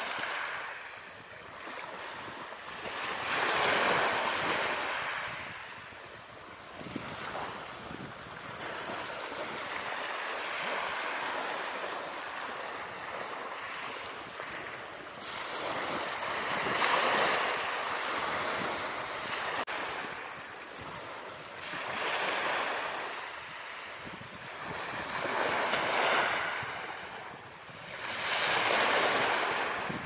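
Ocean surf sound effect: waves breaking and washing in, rising and falling in swells every few seconds.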